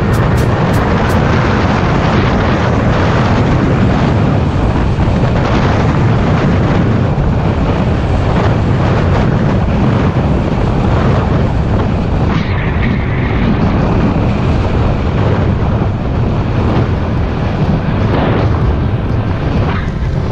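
Steady, loud wind rumble buffeting a helmet-mounted action camera's microphone as a bicycle rolls down a mountain road at speed.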